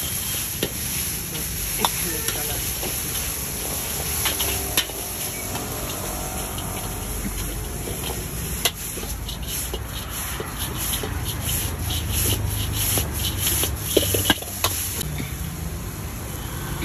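Noodles and vegetables sizzling in a large wok over a gas burner, with a steel ladle scraping and knocking against the wok as they are stir-fried. The knocks are irregular and come more often in the second half.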